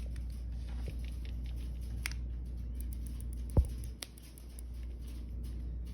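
Light clicks and scrapes from handling a pistol and its Holosun red-dot sight, with one low thump a little past halfway and a smaller click just after.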